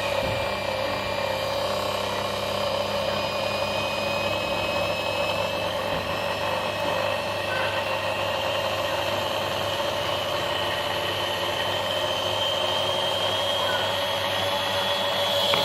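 Washing machine universal (brushed) motor running under an electronic TDA1085 speed controller, with a steady whine that climbs slowly in pitch as it speeds up.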